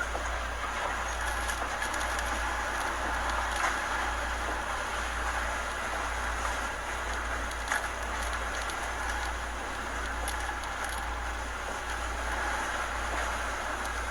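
Hurricane Ida's wind roaring steadily, like a freight train, with heavy wind rumble on the microphone. A couple of brief knocks stand out, one a little under 4 seconds in and one near the 8-second mark.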